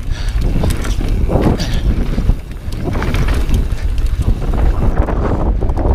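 Wind buffeting the microphone over a mountain bike's tyres rolling on dirt and rock, with irregular knocks and rattles from the bike.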